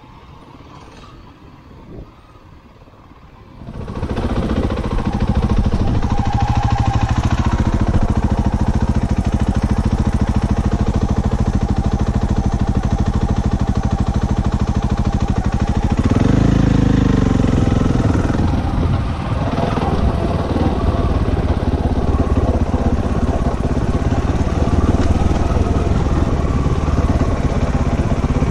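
Faint at first, then a trail motorcycle's engine comes in loud about four seconds in and runs steadily. It pulls harder and louder for a couple of seconds just past the middle.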